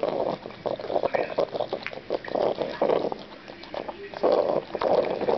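French bulldog snorting and snuffling through its nose as it eats cake, with repeated short snorts and wet smacking and licking clicks in between.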